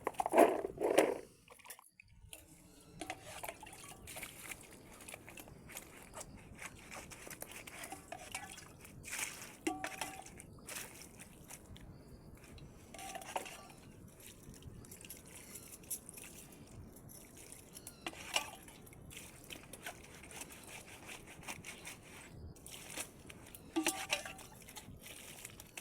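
Water dripping and trickling in the rain, with scattered short knocks and clatters over a faint steady hiss.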